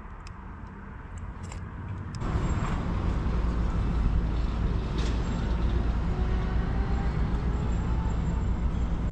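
Loud, steady rumble of a heavy road vehicle's engine with a faint, slowly rising engine note, coming in suddenly about two seconds in.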